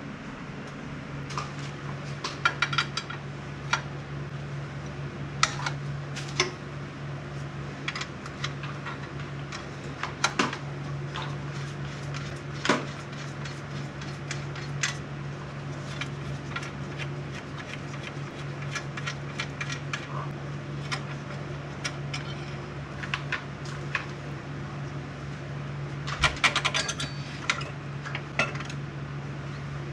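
Scattered sharp metal clinks and taps of a wrench and hand tools on an oil burner's parts, with a quick cluster of them near the end, over a steady low hum.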